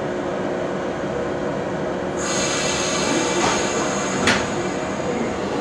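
115-series electric train standing at the platform, its equipment giving a steady hum. About two seconds in, a high hiss starts and carries on, with a short burst of air near the end.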